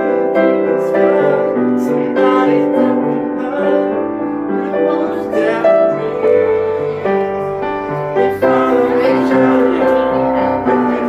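Piano-led instrumental music with a bass line that moves under the chords.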